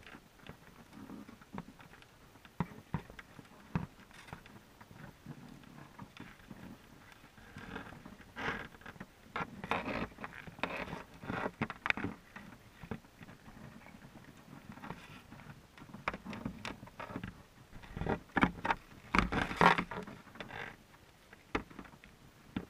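Muffled underwater clicks and scraping inside a wire-mesh crawdad trap as crayfish crawl over the bait and mesh. Irregular scratchy clicks throughout, with busier, louder clusters about eight to twelve seconds in and again near the end.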